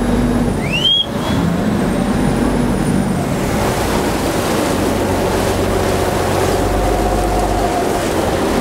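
Chao Phraya river boat's diesel engine running steadily under way, with the wake churning and rushing along the hull. A short rising squeal sounds about a second in.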